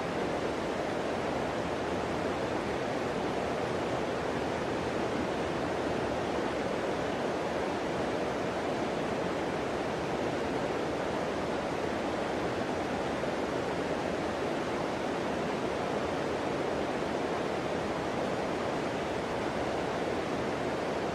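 Steady rush of river water flowing in a shallow stream, an even noise that does not change.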